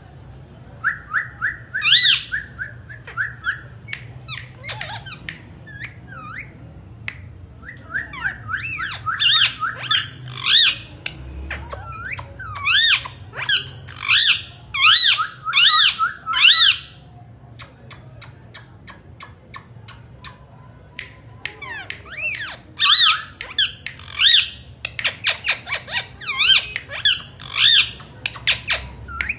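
Indian ringneck parakeet calling: runs of shrill, repeated squawks, several notes to a run, with a stretch of rapid clicking in the middle.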